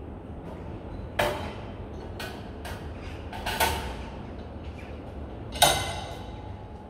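A series of sharp metal clanks and knocks, about six in all. The loudest comes about five and a half seconds in and rings briefly after it, over a steady low background noise.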